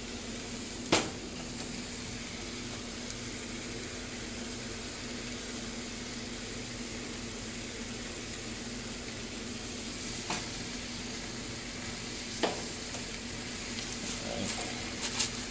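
Raw tilapia fillets sizzling steadily on the hot plates of a George Foreman grill turned up to maximum, over a faint steady low hum. Three short sharp clicks stand out, the first about a second in and the other two near the end.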